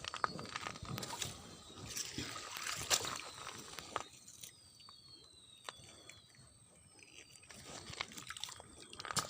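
Water sloshing and splashing in irregular bursts, with sharp clicks, busiest in the first four seconds and again near the end. Faint falling whistled bird calls come twice.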